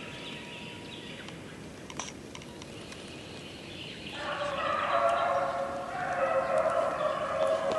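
A pack of rabbit dogs baying on a swamp rabbit's trail, drawn-out overlapping cries. The chorus is faint at first and swells louder about four seconds in.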